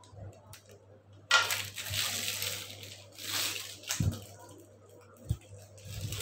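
Thin plastic piping bag crinkling in bursts as it is handled and filled with cake batter, with a couple of soft knocks about four and five seconds in.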